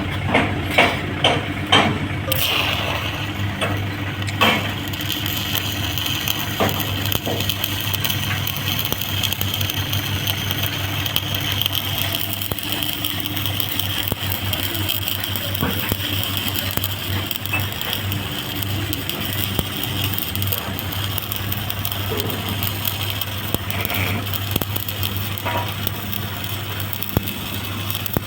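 Stick-welding (SMAW) arc crackling and hissing steadily as the vertical-up cap pass is run, over a constant low hum from the welding machine. A few sharp clicks sound in the first couple of seconds.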